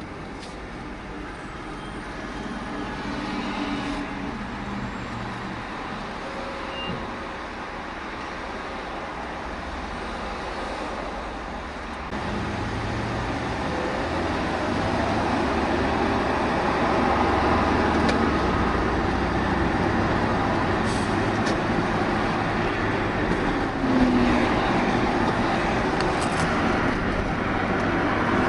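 Road noise from a car driving at highway speed, heard from inside the cabin: a steady rush of tyres and engine that steps up in level partway through and stays louder.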